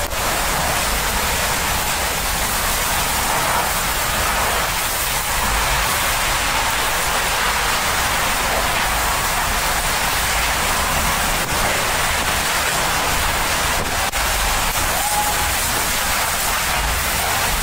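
Hurricane-force wind driving heavy rain: a steady, dense rushing noise with a low rumble underneath, keeping on without a break.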